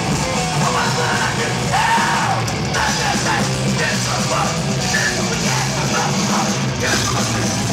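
Crossover thrash band playing live: fast distorted electric guitars, bass and drums with shouted vocals over them.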